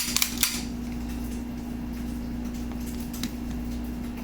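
A quick cluster of small handling clicks right at the start and one faint click about three seconds in, over a steady electrical hum.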